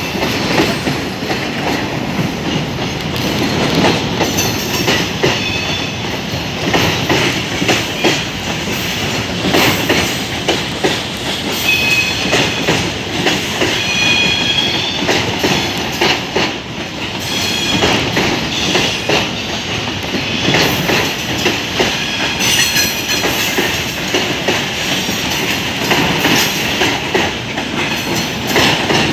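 Freight train wagons rolling past, steel wheels clattering continuously over the rail joints, with a few brief high-pitched wheel squeals.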